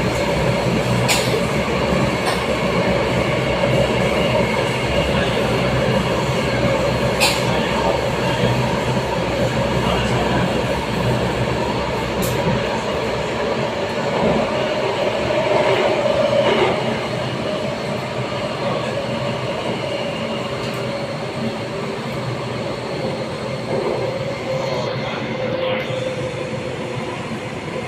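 C951 Downtown Line metro train running, heard from inside the carriage: a steady rumble of wheels on rail with a held motor tone, a few sharp clicks and some wheel squeal. It gets a little quieter about two-thirds of the way through.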